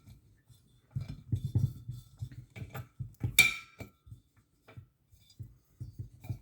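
Metal hose fittings clinking and knocking against the pressure hose reel as the high-pressure hose is fed through it. Soft handling bumps come first, then one sharp, ringing metallic clink about three and a half seconds in, followed by a few lighter ticks.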